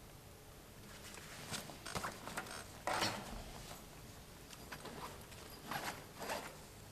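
Rustling and handling noises of a backpack being set down and opened on a wooden bench, in a string of short scuffs with a louder thump about three seconds in.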